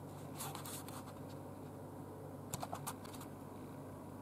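Light handling of a countertop convection oven, door and interior: a brief rustle, then a quick run of small clicks about two and a half seconds in, over a steady low hum.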